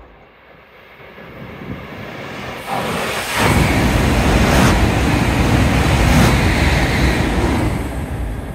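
E5 series Hayabusa Shinkansen passing at high speed just below: a rushing noise that builds over a couple of seconds, comes in loud about three seconds in, and holds for about four seconds with two brief sharper whooshes before fading away.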